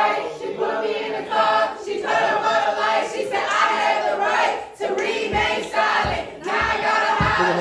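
A crowd of voices singing and chanting together loudly in short phrases of about a second each. A few deep thumps come in the second half.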